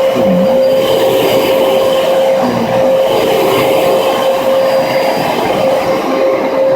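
Dyson DC33 upright vacuum cleaner running steadily: a high motor whine held on one pitch over the rush of air through it.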